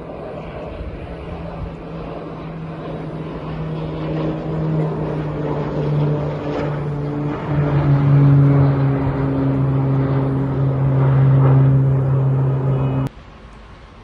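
Firefighting aircraft's engines droning overhead, growing louder as it approaches. The pitch drops a little around the middle as it passes, and the sound cuts off abruptly near the end.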